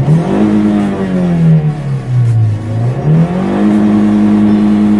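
Toyota Rush's 1.5-litre four-cylinder engine free-revved while stationary: it climbs quickly to about 6000 rpm and holds against the fuel cut. Between about two and three seconds in, the revs drop back partway, then it is revved up again and held steady at the limiter.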